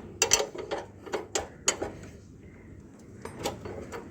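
Quick run of small clicks and knocks as motorcycle rear-wheel and drum-brake parts are worked into place during reassembly. It thins out after about two seconds, with a couple more clicks later.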